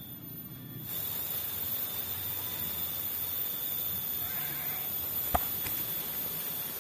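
Steady outdoor ambience in a bamboo forest: an even hiss with faint steady high tones, stepping up in level about a second in. A single sharp click or snap comes a little after five seconds.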